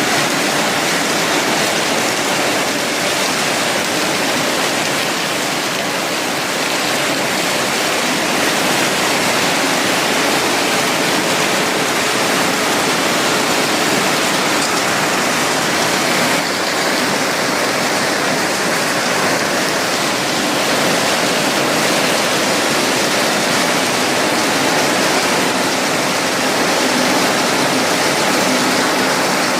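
Automatic cashew-nut cutting and separating machine running: a loud, steady, even rush of noise with a faint hum underneath.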